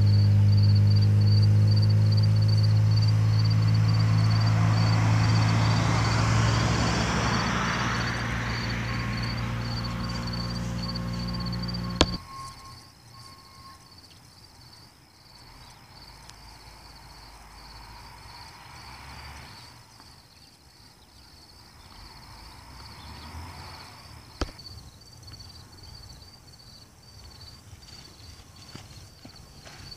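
A loud, steady low hum with a rushing noise that swells and fades over it, cut off suddenly about twelve seconds in. After that there is a quieter outdoor background with insects chirping steadily throughout.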